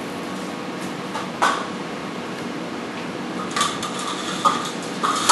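Fish tape and cables being pulled out through a wall junction box: a single knock about a second and a half in, then a run of metallic clinks and rattles from about three and a half seconds. A steady room hum sits under it.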